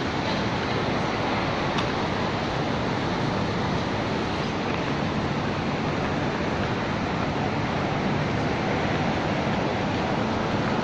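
Steady, unbroken rushing noise of city street ambience, with no distinct events standing out.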